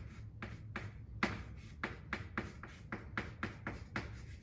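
Chalk on a blackboard as characters are written: a quick, irregular series of sharp taps and short scrapes, about four or five a second.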